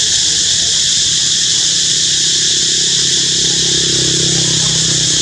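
Loud, steady insect chorus: a high, even drone with no break. A low hum sits underneath it from about a second in until near the end.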